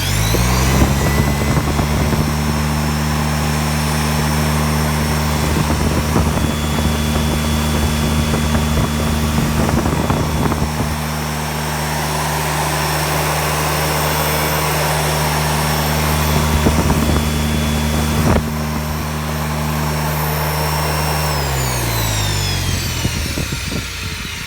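Motor-driven generator set (a so-called fuelless generator) switched on and spinning up quickly, then running with a steady loud hum and a high whine. A little past twenty seconds in it winds down, the hum and whine falling in pitch together as it slows.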